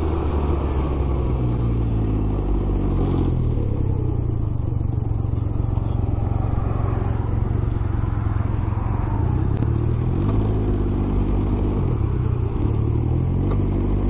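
Can-Am Ryker three-wheeler's engine running at low road speed, its note falling and rising a few times as the rider slows and turns, with wind and road noise.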